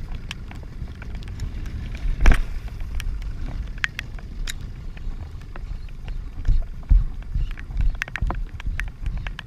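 Wind and rain buffeting the camera microphone in a downpour on open water: an uneven, gusting low rumble with scattered sharp ticks, and one louder knock about two seconds in.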